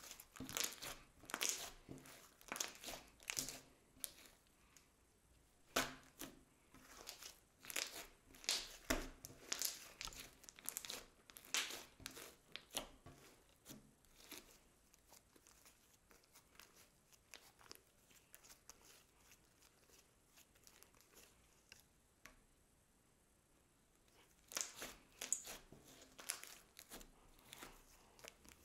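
Glossy slime with makeup mixed in being kneaded, pressed and stretched by hand, giving sticky crackles and pops in quick clusters. Busy for the first dozen seconds, sparse for about ten seconds, then another burst near the end.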